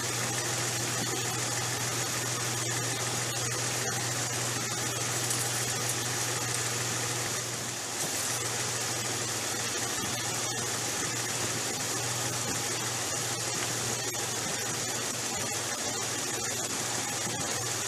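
Jeep Cherokee XJ engine idling steadily in neutral, run so the transmission fluid level can be checked on the dipstick.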